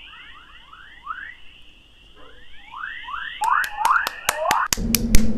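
Recording of Earth's 'chorus' radio waves turned into sound: a stream of quick rising chirps like birdsong over a thin steady whistle. About three and a half seconds in, a run of sharp clicks cuts in and gives the loudest sounds, and a low steady hum begins near the end.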